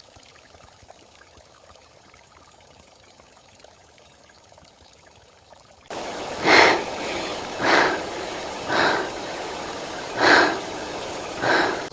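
A faint steady rain hiss. About six seconds in, a much louder rushing ambience cuts in suddenly, with five swelling swishes at gaps of a second or more.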